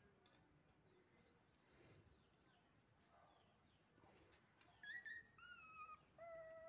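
Puppy whining: three short high-pitched whimpers, one after another, in the last two seconds.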